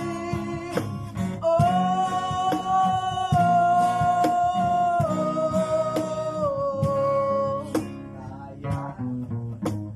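Acoustic guitars strumming with a cajón keeping the beat, and a voice singing one long held high note from about one and a half seconds in until nearly eight seconds. The playing thins out near the end.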